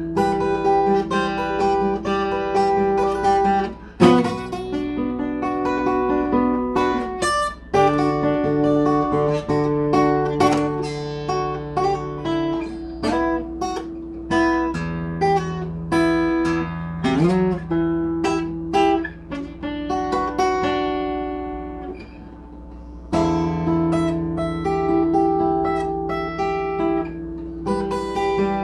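Acoustic guitar played solo: picked notes and chords ringing out, with a sliding note rising in pitch partway through.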